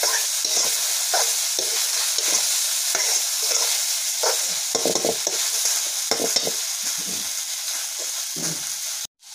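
Chopped okra sizzling in a kadhai while a metal spoon stirs it, with irregular scrapes of the spoon against the pan over a steady hiss. The sound cuts off abruptly near the end.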